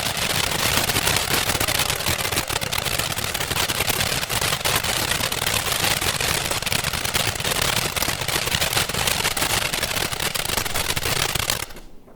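Pyrotechnic ground fountain (Pavlin РС4555) burning: a steady, loud hissing spray of sparks packed with rapid crackles, which stops abruptly near the end.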